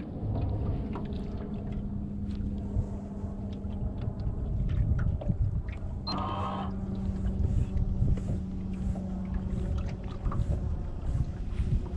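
Electric bow-mount trolling motor humming steadily with one low tone over a low rumble. The hum breaks off briefly a little past halfway, where a short higher-pitched rasp sounds, and then carries on.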